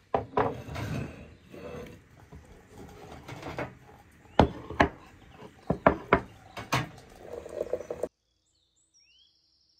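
Tableware clinking and knocking: plates, glasses and a teapot set down on a wooden table and metal tray, with several sharp knocks. It cuts off suddenly about eight seconds in.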